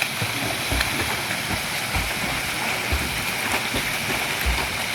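Waterfall rushing as a steady, loud wash of water noise, with a few brief low thumps.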